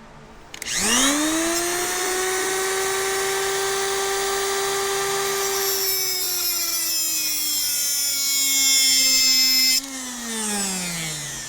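Small high-speed power tool spinning up to a steady whine with a grinding hiss, its pitch slowly sagging as it bears on a stripped carburetor float bowl screw, then released near the end and winding down.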